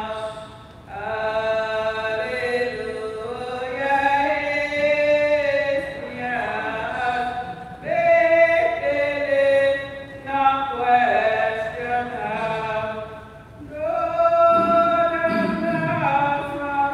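Voices singing a slow, unaccompanied hymn or chant at Mass: held notes in phrases a few seconds long, with brief breaths between phrases.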